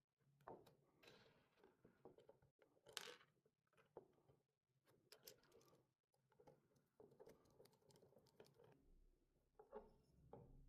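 Near silence, with faint, irregular clicks and short rustles.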